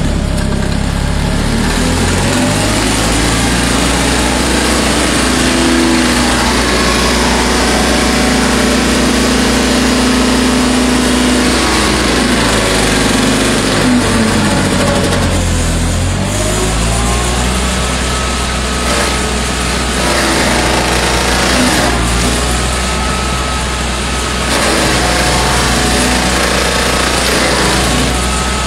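Green Climber LV600 tracked mower with a mulcher head grinding a tree stump: its Kohler engine runs hard under load while the spinning rotor chews into wood and soil. The engine note dips and climbs back a few times around the middle as the head bites in.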